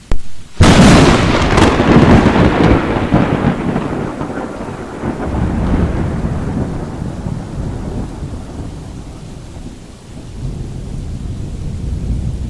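A sudden loud thunderclap about half a second in, followed by long rolling rumbles of thunder that fade and swell again, over steady rain.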